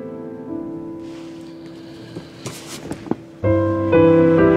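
Soft background score with piano: held notes thin out, a few faint clicks sound, then fuller, louder chords come in about three and a half seconds in.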